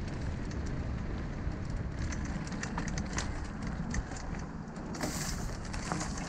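Mountain bike riding along a dry dirt singletrack: a steady rumble of tyres on packed dirt, with many small clicks and rattles from the bike and trail. A brief higher hiss comes about five seconds in.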